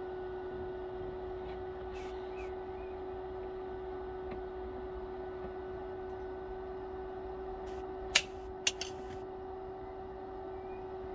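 Portable welding set humming steadily with no arc running. Two sharp metallic clicks come about eight seconds in, half a second apart.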